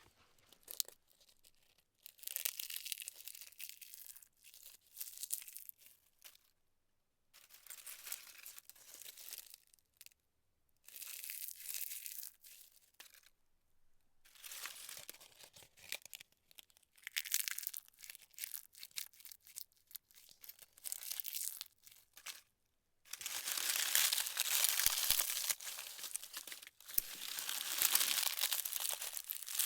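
A handful of dry leaves crunched and crumpled in a bowl by hand, in repeated bouts of crackling a few seconds long with short pauses between, louder and almost continuous near the end.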